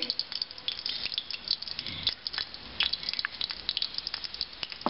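Hot cooking oil crackling in a pot, with irregular sharp pops and spits; mustard seeds go into the oil near the end, when the loudest pop comes.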